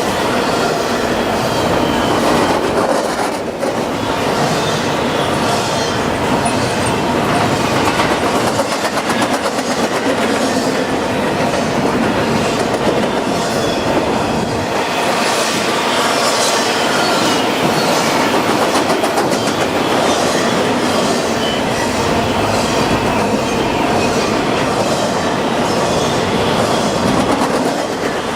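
CN freight train rolling past at speed, a steady rumble with its wheels clicking rhythmically over the rail joints.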